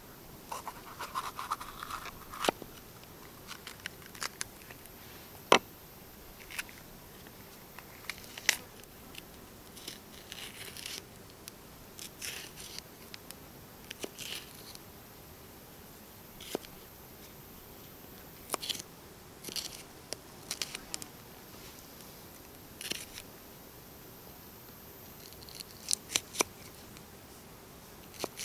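Knife cutting a red bell pepper into strips on a wooden log-slice board: irregular crisp cuts and sharp taps of the blade on the wood, separated by short pauses.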